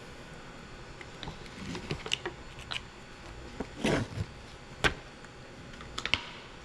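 Small objects being handled close by: a string of light clicks and knocks, with a longer scraping or rustling sound about four seconds in and a sharp click just after.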